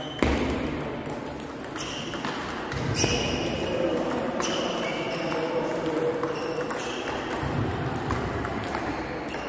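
Table tennis rally: the plastic ball clicking off the bats and bouncing on the table, one bat a Stiga Cybershape Carbon with short-pimpled rubber. Each hit rings briefly, with a stroke or bounce every second or so.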